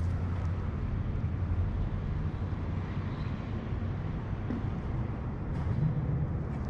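Steady low mechanical hum with a constant drone underneath.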